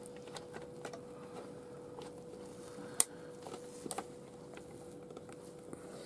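Light handling clicks and knocks as the Roberts R900 radio's chassis is worked out of its case by hand, with one sharper click about three seconds in. A faint steady hum runs underneath.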